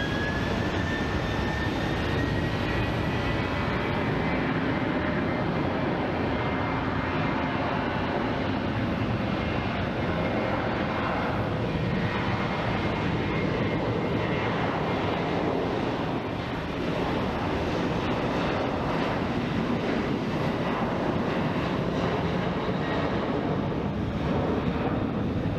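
Jet airliner's engines at takeoff thrust: a steady, loud rush of jet noise with a high whine that rises in pitch over the first couple of seconds, then holds.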